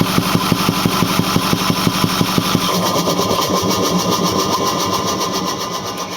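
Ford 6.4L Power Stroke V8 turbodiesel running with a rhythmic thumping from the intake, about six to seven thumps a second, of unknown cause. About three seconds in the thumping stops, leaving a smoother engine sound that slowly fades near the end.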